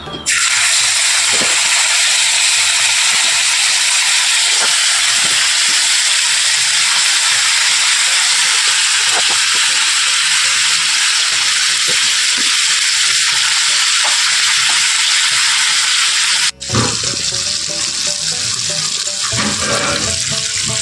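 Chilli-marinated anchovies sizzling in hot oil in a frying pan: a loud, steady hiss that starts as the fish go in. It drops out for a moment near the end, then carries on.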